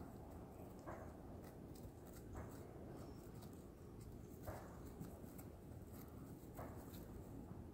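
Horse grazing: a few soft tearing sounds of grass being cropped, roughly every two seconds, against faint background noise.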